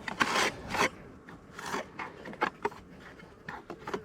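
Tool scraping comb from a beehive: a run of short, irregular scrapes, several close together near the start and more scattered after.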